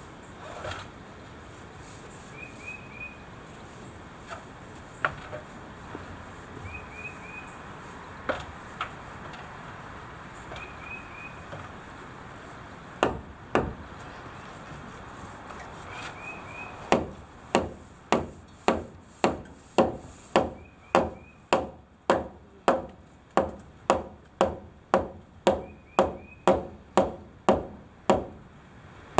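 Scattered knocks of lumber being handled, then, from a little past halfway, steady hammer blows on wood at about two a second. A bird gives short triple chirps every couple of seconds through the first half.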